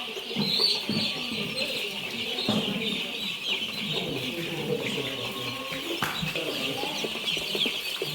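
A flock of three-week-old chicks peeping continuously, many short overlapping chirps.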